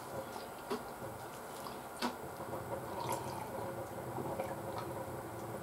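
Metal spoon clicking a few times against a plate of curry rice, with chewing, then sips of water from a glass near the end.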